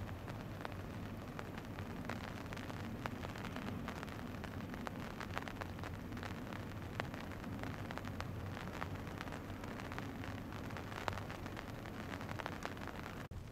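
Waterside ambience: a steady low hum and hiss, dotted with many small irregular clicks and ticks.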